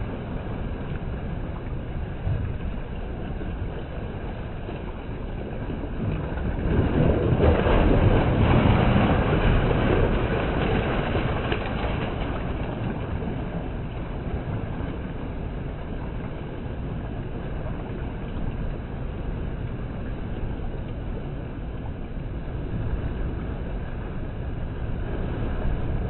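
Sea waves surging in and washing around rocks as a steady rush of surf. One wave builds and breaks loudest about seven to ten seconds in, and another swells near the end.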